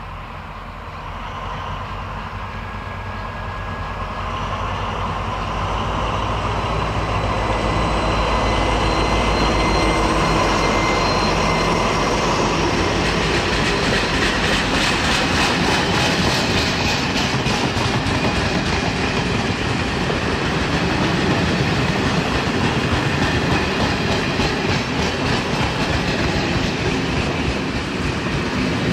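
Pair of SNCF BB 67400 diesel locomotives approaching with their engines running, growing louder over the first several seconds. Then a long rake of old passenger coaches rolls past with a steady clatter of wheels on the rails.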